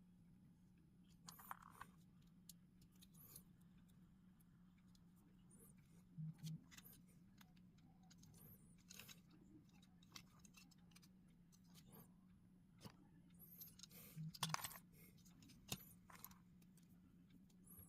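LEGO bricks being handled and pressed together: scattered light plastic clicks and taps, with a denser cluster of clicks about three quarters of the way through.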